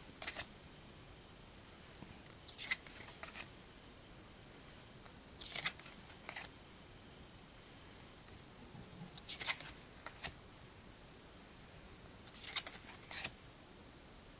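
Tarot cards being flipped through one at a time from a hand-held deck: every three seconds or so a short flurry of two or three crisp card snaps and slides as each card is pulled off the front of the stack.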